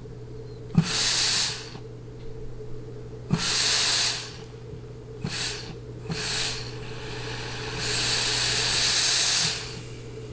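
Compressed air blown in five hissing bursts, most opening with a click, into the forward clutch feed circuit of a 4L60E automatic transmission through an air test plate, the longest burst near the end. Air leaking across into the 3-4 clutch circuit and around the forward drum is the sign of a cross leak, which the rebuilder puts down to a turbine shaft sealing ring.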